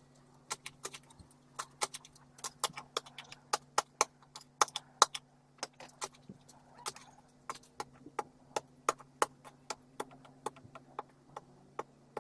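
A fast, irregular run of sharp clicks or knocks, several a second, over a steady low hum.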